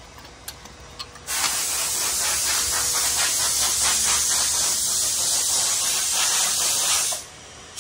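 A loud, steady hiss that starts about a second in and cuts off shortly before the end.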